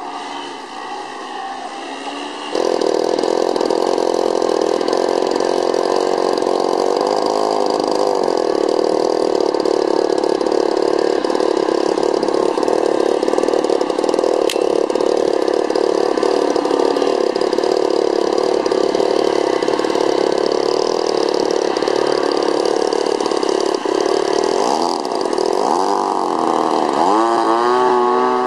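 RC model airplane engines droning steadily overhead. The sound gets louder a couple of seconds in, and near the end the pitch rises as one engine revs up.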